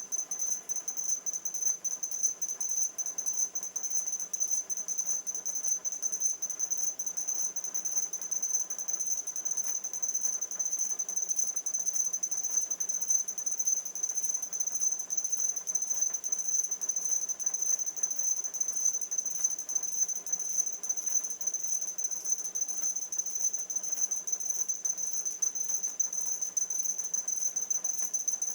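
E-puck robots beeping through their small speakers, many beeps overlapping in quick succession so that they blur into one continuous shrill tone with a fast flutter, sped up to double speed.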